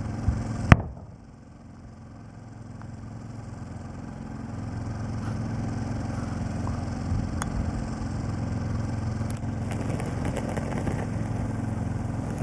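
A sharp click about a second in, then a steady low drone of an idling engine.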